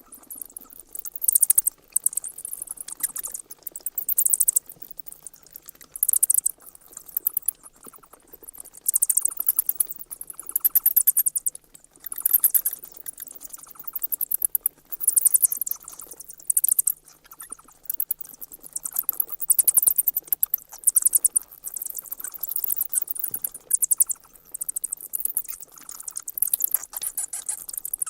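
Bats squeaking: bouts of rapid, very high-pitched chittering clicks, each about a second long, repeating again and again with short pauses between.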